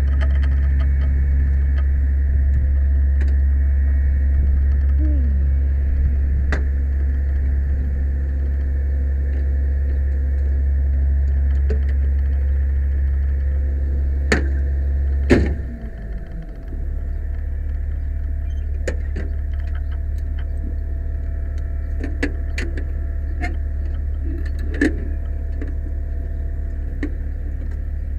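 An aerial ladder fire truck's diesel engine running steadily as a loud low drone, with clicks and knocks of hands and boots on its metal turntable and rails. About halfway through, a sharp knock comes and the drone drops to a lower, steady level.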